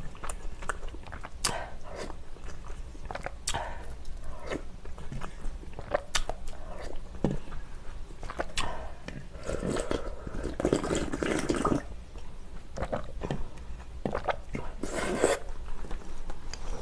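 Close-miked eating sounds: hot spicy beef soup with glass noodles slurped from a spoon, with wet chewing and scattered sharp clicks of the spoon against the bowl. The longest slurps come after the middle and again near the end.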